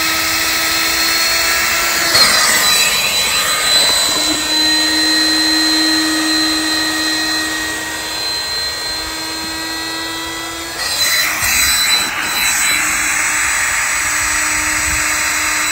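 Electric inflation pump running in deflate mode, sucking the air out of an inflatable kayak: a steady motor hum that holds its pitch. The sound turns noisier, with more rushing air, about eleven seconds in.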